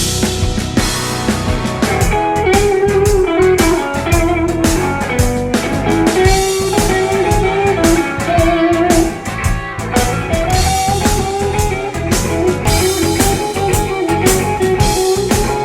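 Instrumental break in a blues-rock song: a guitar plays a melodic solo line over a drum kit and a steady low bass part.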